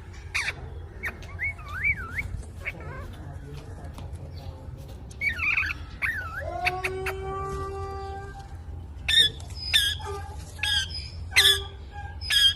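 Pet parrot calling: a few short warbling whistles, then a long held whistle around the middle, then a run of sharp, loud squawks in the last few seconds. A steady low hum sits underneath.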